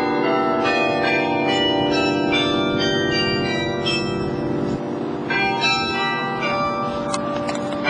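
Tower carillon bells playing a tune: many bell notes struck one after another, each ringing on over the next, with a brief thinning about five seconds in before new notes start.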